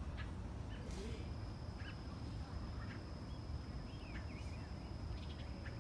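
Backyard ambience: scattered short bird chirps and a few warbling calls over a steady low rumble, with a thin, steady high-pitched whine that comes in about a second in.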